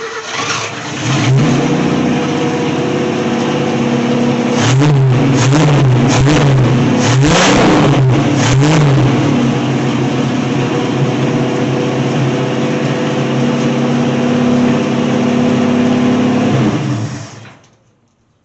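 Ford Falcon engine, just brought back with a rebuilt carburetor, firing up and running. It is blipped through about five quick revs a few seconds in, then idles steadily before shutting off near the end.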